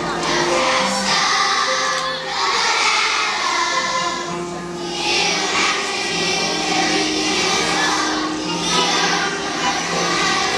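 A large children's choir singing together over musical accompaniment, in held notes that change every half second or so.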